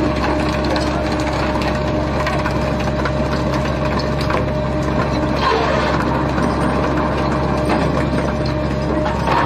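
A fishing boat's machinery runs with a steady drone and a few fixed tones, while short clanks and rattles come and go.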